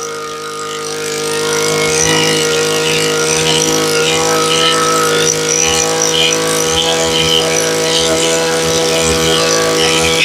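Echo 26cc brush cutter engine running steadily at high revs, picking up slightly about two seconds in; it runs strong and responsive.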